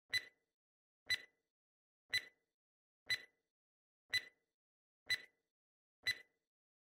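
Countdown-timer sound effect: sharp clock-like ticks, one a second, each with a brief ringing tone, seven in all.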